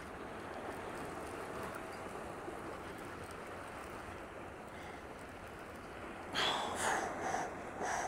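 Steady wind and water noise. About six seconds in, a run of louder splashes begins as a hooked speckled trout is brought to the landing net.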